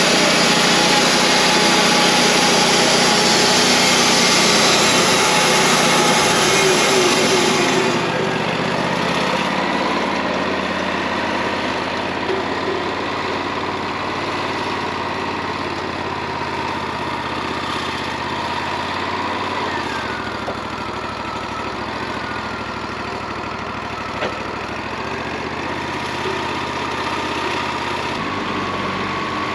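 Wood-Mizer LT40 portable bandsaw sawmill running. It is louder and hissier for about the first eight seconds, then drops to a steadier, lower running, with a short wavering whine a little past the middle.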